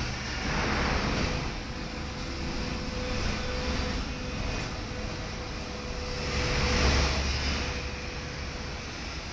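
Tram running along its rails, heard from on board: a steady low rumble of wheels on track with a thin, steady motor whine. It swells about a second in and again near the end as it rolls on past other traffic and a passing tram.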